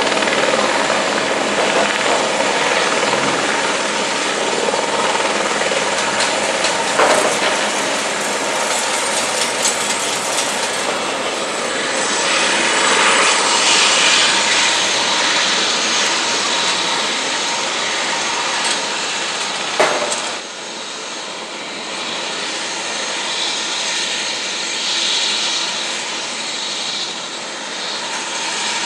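Helibrás AS-350 B3 Esquilo helicopter running on the ground with its rotor turning, a steady turbine and rotor noise. About twenty seconds in, after a sharp click, the sound turns slightly quieter and changes to the steady engine noise of a single-engine turboprop airplane.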